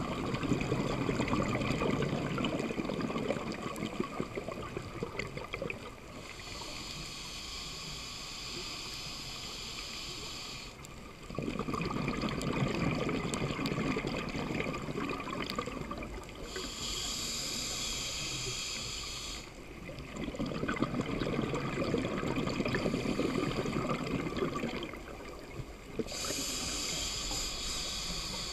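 Scuba regulator breathing underwater, three full breaths. Each breath is a long, louder bubbling rumble as the diver exhales, followed by a quieter hissing draw through the regulator on the inhale.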